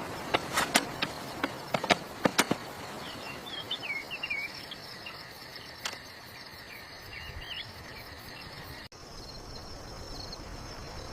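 Outdoor ambience of insects buzzing steadily and birds chirping, with a quick series of sharp knocks or taps in the first couple of seconds and one more about six seconds in.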